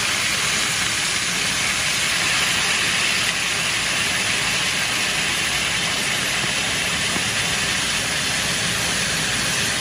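Beer being poured into a hot pan of seared beef short ribs, hissing and steaming steadily, over the steady noise of a kitchen exhaust fan.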